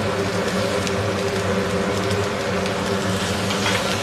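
Chopped onions sizzling in oil in a steel kadai as they are stirred with a spatula, over a steady low machine hum.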